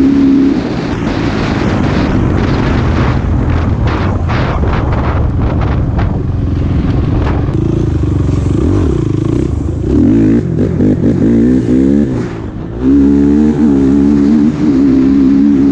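Honda TRX450R quad's single-cylinder four-stroke engine running hard at speed, its revs rising and falling as the throttle is worked. The engine note dips briefly about three-quarters of the way through, then comes back strong and steady. Wind buffets the microphone through the first half.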